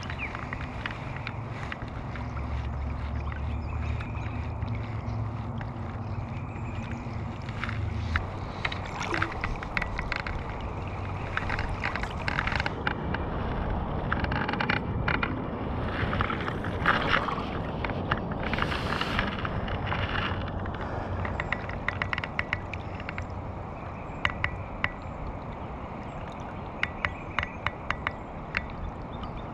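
River current gurgling and sloshing around a wading angler, with a low wind rumble on the microphone that is heaviest in the first few seconds. A run of short, sharp clicks comes near the end.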